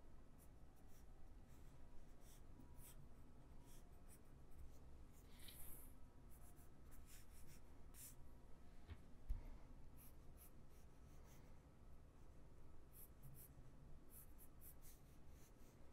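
Faint, quick scratching strokes of sketching lines on a drawing surface, coming in irregular short runs, busiest near the end. A single soft low knock about nine seconds in.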